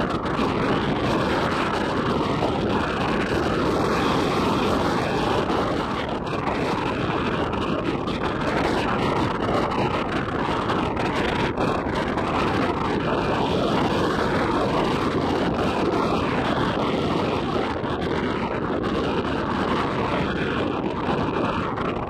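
Steady rushing wind noise buffeting a phone's microphone on an open beach.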